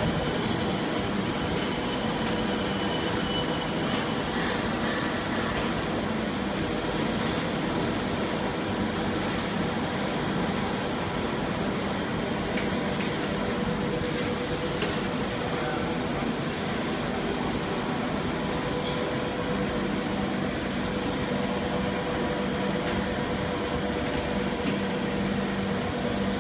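Blown-film extrusion machine running: a steady mechanical drone of motors and blower, with a constant high whine over it.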